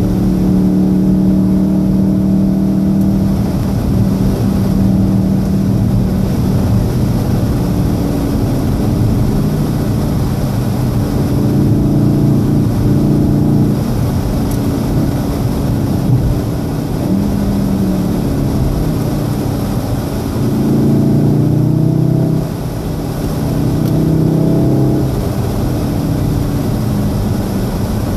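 Golf VII R's turbocharged 2.0-litre four-cylinder engine heard from inside the cabin, running under way with tyre noise from the wet track. The engine note changes pitch several times in the second half as the car slows from motorway speed to about 50 km/h.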